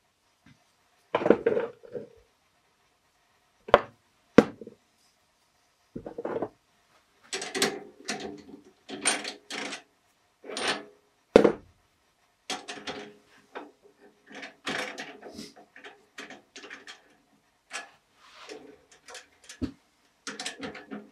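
Hand work at a stopped wood lathe: a turned wooden workpiece being knocked and fitted into a metal four-jaw chuck, and the chuck tightened with its key. The result is an irregular run of wooden knocks, clunks and metallic clicks and rattles, with a few sharp knocks standing out.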